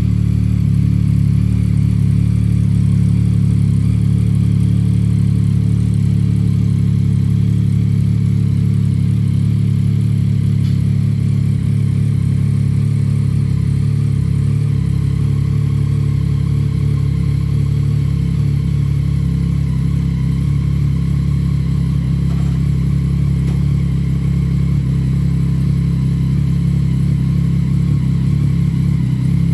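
A 2015 Yamaha MT-09's 847 cc inline three-cylinder engine idling steadily through a full Akrapovic exhaust system with the baffle removed.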